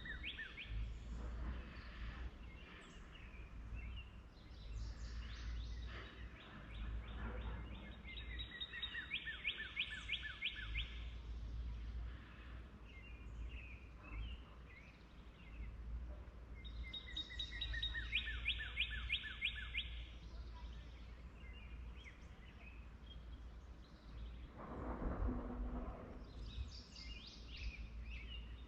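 Songbirds singing over a steady low rumble. One bird repeats a fast, rapid-note trilled song about three seconds long, near the start, about eight seconds in and again about seventeen seconds in.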